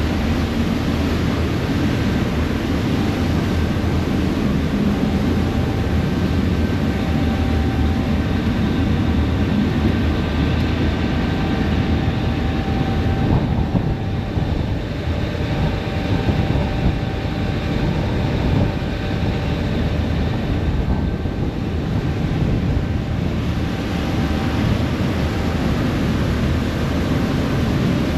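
Passenger ferry under way: a steady low drone of the engines and the rush of wind and water, with faint thin whining tones coming and going above it.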